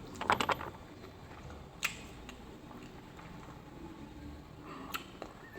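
Someone biting and chewing food: a quick run of crunchy clicks near the start, then single sharp clicks about two seconds in and near the end.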